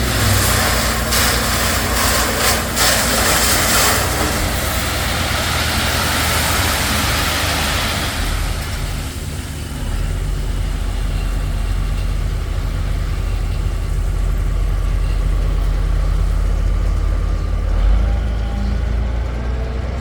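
Diesel engine of a gravel dump truck running throughout, while for the first eight seconds or so a load of gravel pours out of the bed with a loud rushing rattle. After that the engine runs on steadily.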